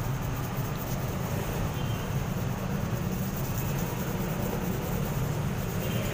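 A steady low drone runs throughout, with a small flashlight part being rubbed by hand on wet sandpaper.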